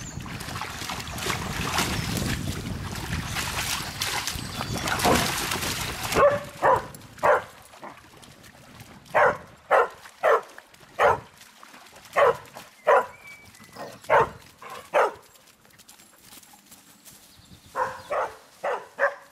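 Poodles splashing through shallow river water, then one poodle barking over and over: about a dozen short barks, a pause, and a quick run of four more near the end.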